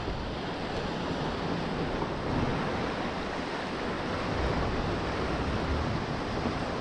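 Sea surf washing steadily against a rocky shore, with wind buffeting the microphone in low gusts.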